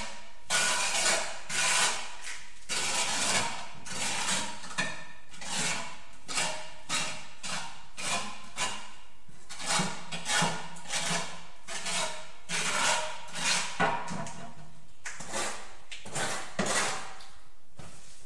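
Repeated scraping strokes of a mason's trowel working mortar for tiling, roughly one or two a second in an uneven rhythm.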